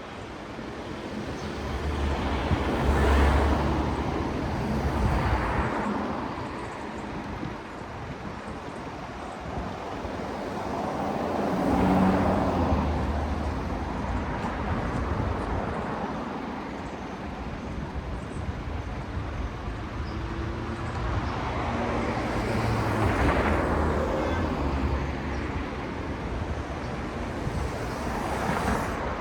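Cars passing one after another on a city street, each a swell of tyre and engine noise that rises and fades over a few seconds. The loudest passes come about 3 seconds and 12 seconds in, over a steady background of traffic.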